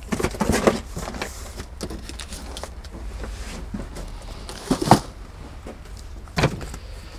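Handling of a cardboard box: flaps folded shut and the box shifted, with rustling and scattered clicks. There are two sharp knocks, the louder about five seconds in, as things are set down, and then a notebook is handled on a worktop, all over a steady low hum.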